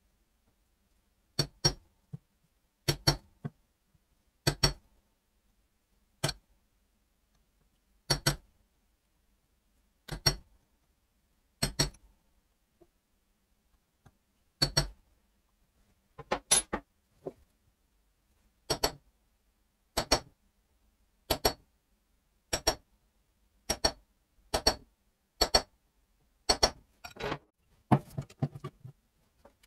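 Claw hammer striking a steel punch held against the drive sprocket of a Kawasaki KM90 engine: sharp metallic taps, single or in pairs, about every second and a half. Near the end comes a quicker run of metal clinks as tools are handled.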